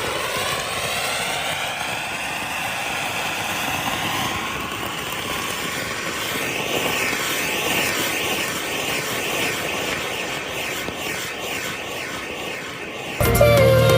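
Three anar fountain firecrackers on a table fan's blades burning together with a loud, steady rushing hiss that wavers up and down in pitch. Music cuts in abruptly near the end.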